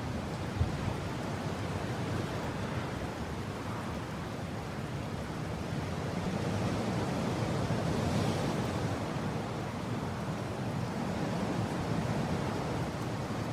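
Mountain wind blowing steadily, a dense rushing noise that swells in strength in the middle and then eases.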